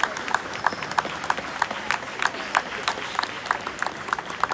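Scattered clapping from a small group of spectators, separate sharp claps several times a second over a low crowd hubbub.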